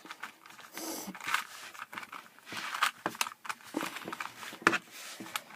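A new Rubik's-brand 3x3 cube being turned by hand, its plastic layers clicking and clacking in quick, irregular turns as it is tested for corner cutting.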